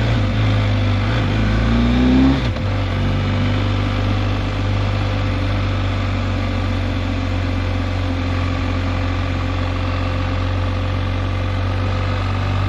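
BMW R1250GSA motorcycle's boxer-twin engine under way: it climbs in revs for about a second, drops abruptly at a gear change about two seconds in, then runs steadily at cruising speed.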